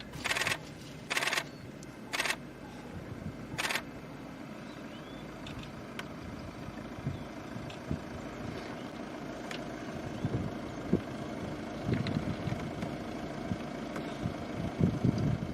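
Camera shutters firing in short rapid bursts, four times in the first four seconds. After that a vehicle engine runs at idle with a steady low rumble and scattered low knocks.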